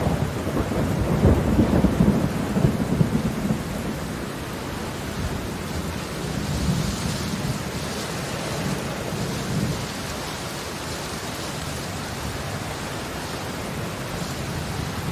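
Heavy rain falling steadily, with a deeper rumble swelling through the first few seconds before it settles into an even downpour.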